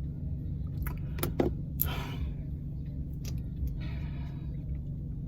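Car engine idling, heard from inside the cabin as a steady low hum, with a few light clicks and short rustles over it.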